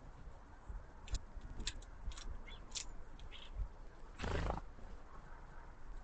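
A house sparrow at a tube seed feeder gives a few short clicks and chirps, then flutters off: a half-second whirr of wingbeats about four seconds in is the loudest sound.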